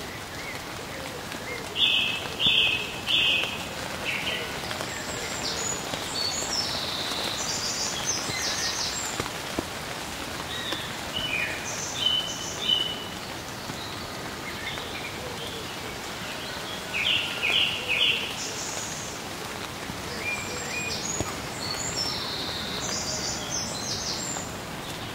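Birds chirping in scattered groups of two or three short calls over a steady hiss like rain.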